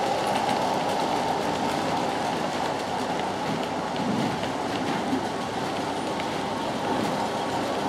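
0 gauge model freight wagons rolling along the layout track: a steady running noise from the wheels on the rails.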